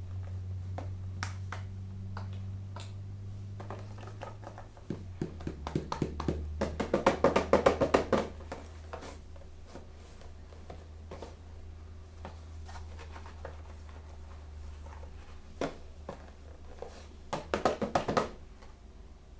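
Hands handling toy packaging: rapid crinkling and crackling of plastic wrap in two bursts, a long loud one about five seconds in and a shorter one near the end, with scattered light clicks between, over a faint steady low hum.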